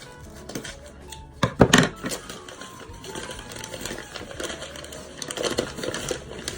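Paper packing and tape crinkling and tearing as a plant is unwrapped, loudest in a burst of crackles about a second and a half in, then a steady rustling with small clicks. Background music plays underneath.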